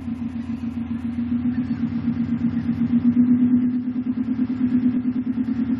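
2005 Subaru WRX STI's turbocharged flat-four running at a rough, uneven idle just after a cold start, swelling in loudness about halfway through. The owner suspects a vacuum leak, since a ROM reader showed it adding too much fuel after a Grimmspeed air oil separator was fitted.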